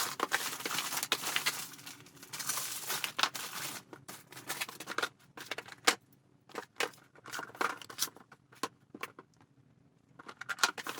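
Plastic packaging of a speed cube crinkling and tearing as it is opened for about the first five seconds, then scattered light clicks and taps of handling.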